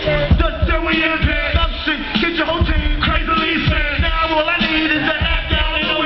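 Live hip hop through a concert sound system: a rapper's voice over a loud, bass-heavy beat with steady kick-drum thumps.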